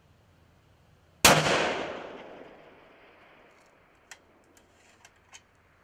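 A single shot from a .338 Lapua Magnum bolt-action rifle fitted with a muzzle brake, a sharp crack about a second in with an echo trailing off over about a second and a half. A few light clicks follow near the end.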